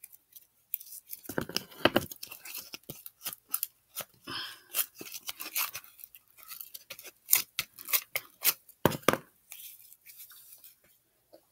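Homemade slime being squished and pulled apart by hand, giving an irregular run of sticky, wet crackles and clicks, with plastic tub handling and a few low knocks near 2 seconds and 9 seconds in.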